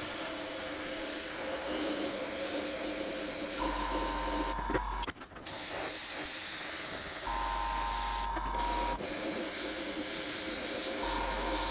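Gravity-feed airbrush spraying paint: a steady hiss of air and paint that breaks off briefly twice as the trigger is let go. A low hum comes in three times under the hiss.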